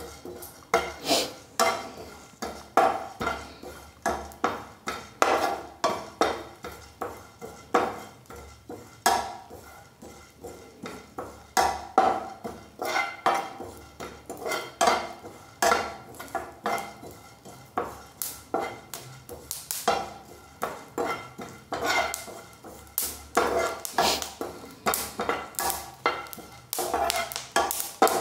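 Steel perforated spoon stirring melon seed kernels as they roast in a frying pan. It makes a steady run of metal clinks and scrapes against the pan, about two a second.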